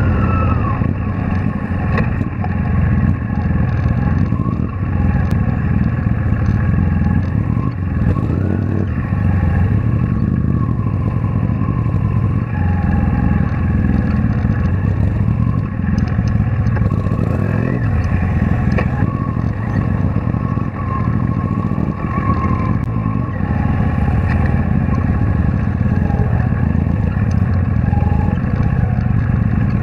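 V-twin cruiser motorcycle engine running at low speed through stop-and-go traffic, heard from a camera mounted on the bike. Its pitch wavers up and down a little with the throttle. The sound is steady and muffled, with little above the midrange.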